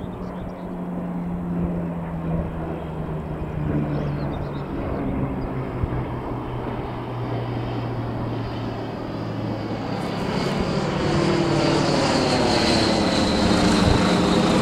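Hawker Hurricane Mk XIIa's Merlin V12 engine droning through a display pass, its pitch falling steadily as it draws away. About ten seconds in, a second propeller aircraft passing overhead takes over, louder and fuller.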